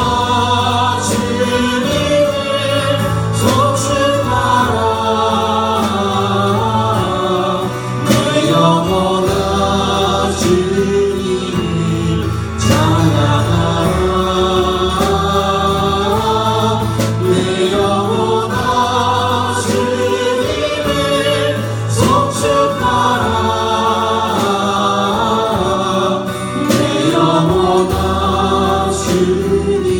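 Christian worship song sung live, voices over a steady instrumental backing with a regular beat.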